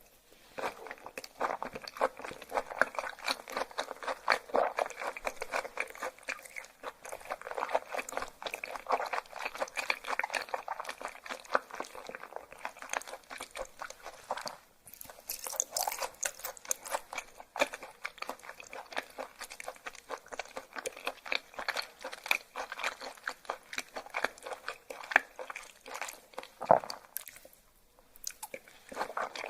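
Close-miked chewing of raw yellowtail (buri) sashimi: a crisp, crunchy sound made of many quick small crackles. It pauses briefly about halfway through and again near the end.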